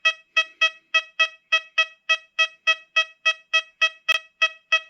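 XP Deus 2 metal detector giving its target tone on a heavily corroded shield penny: a run of short beeps of one steady pitch, about three or four a second, with a sharp click about four seconds in. It is a clean, repeatable response that reads as a very good target ID despite the corrosion.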